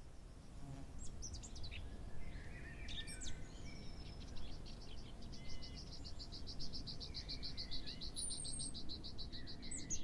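Several wild birds chirping and calling, with one bird's fast trill of evenly repeated high notes from about four seconds in until near the end, over a low background hum.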